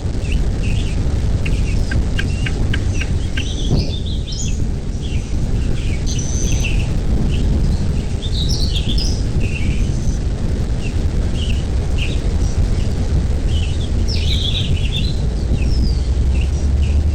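Birds chirping with many short, scattered calls, over a steady low rumble.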